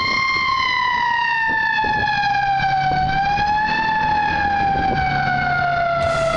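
Emergency siren on a box ambulance pulling away, one wailing tone whose pitch slides slowly down, rises briefly about four seconds in, then slides down again. A low engine hum runs underneath.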